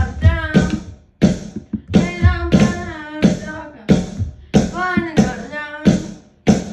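A song played back: a singing voice in short phrases over instruments and a beat.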